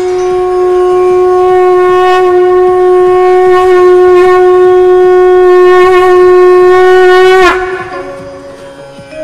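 Conch shell (shankh) blown in one long, loud, steady note that bends down in pitch and stops near the end, as the breath runs out.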